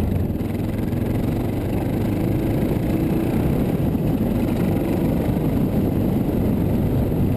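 650 cc single-cylinder dual-sport motorcycle engine running at a steady pace while being ridden.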